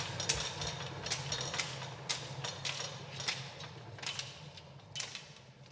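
Machinery in a cinema projection booth running: a steady low hum with a string of sharp mechanical clicks that come further apart and fade away toward the end.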